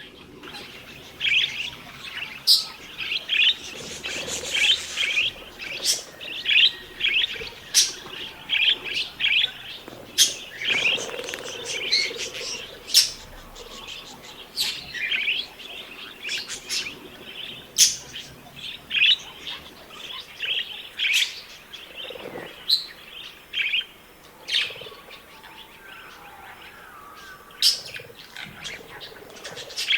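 Budgerigars chattering and warbling: a steady stream of short, quick chirps with sharp clicks mixed in.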